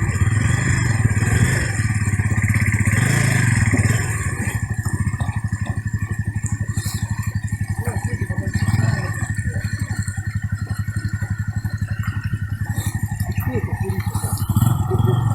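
Single-cylinder 250 cc four-stroke enduro motorcycle engine running with rapid, even firing pulses. It is revved higher for the first four seconds, then drops to a lower steady run, with short blips of throttle about nine seconds in and near the end.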